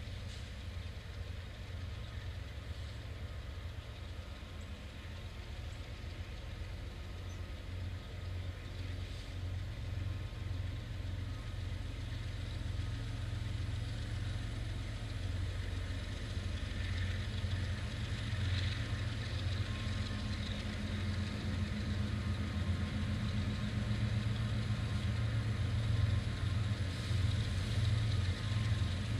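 Diesel engines of a Kansas City Southern SD70ACe and ES44AC locomotive pair running as the slow-moving train approaches, a steady low drone that grows gradually louder.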